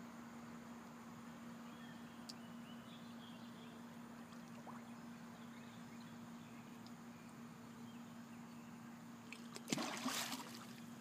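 Faint lakeside background with a steady low hum, then near the end a single sudden splash in the lake water that lasts about a second.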